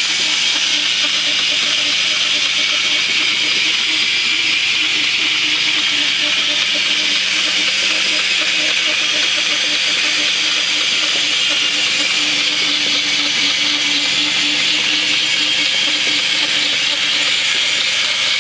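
Homemade sawmill driven by a 2-horsepower DC motor, running steadily with a loud hissing whir and a faint hum underneath that drops away near the end.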